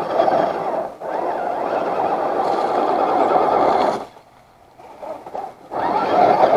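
Small electric motor and geared drivetrain of an Axial SCX10 II RC crawler whining under throttle, in long pulls. It cuts off about four seconds in and starts again near the end.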